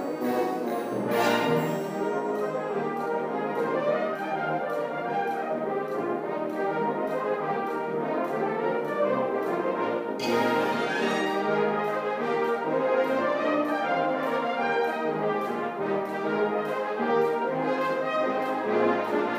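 Fanfare orchestra of saxophones and brass playing a full passage, with a steady ticking beat from the percussion. A crash from the percussion comes about halfway through.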